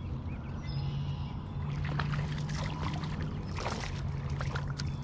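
A small hooked bass thrashing and splashing at the water's surface as it is reeled in, with irregular splashes from about two seconds in, over a steady low hum.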